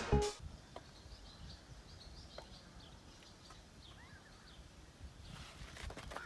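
Faint outdoor background with small birds chirping here and there. A burst of music cuts off right at the start.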